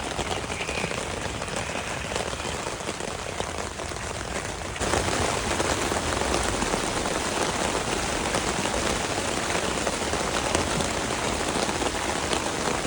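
Heavy rain pelting a tent in a severe storm, a dense steady hiss that gets louder about five seconds in.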